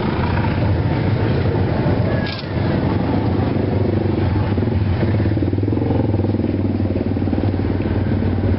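Motorcycle engine running steadily close by, with street traffic noise.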